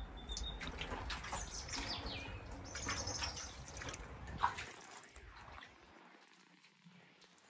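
Small birds chirping with short whistled calls over a low rumble that dies away about two-thirds of the way through.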